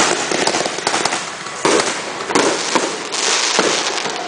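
Aerial fireworks going off in quick succession: continuous dense crackling, with three louder bursts at about one and a half, two and a half and three seconds in.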